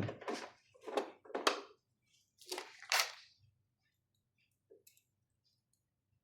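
Handling noises from the ventilator's plastic parts and cable: two sharp clicks about a second in, then a brief scraping rustle, followed by quiet with one faint tick.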